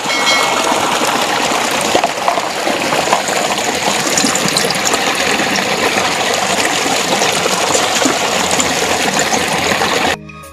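Heavy stream of water gushing steadily from a large outlet pipe into a concrete tank. The sound cuts off abruptly near the end.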